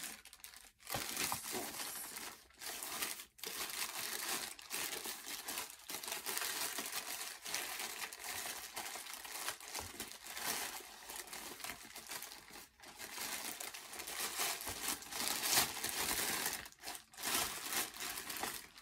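Plastic poly shipping mailer crinkling and rustling as it is handled and torn open by hand, in irregular stretches with short pauses.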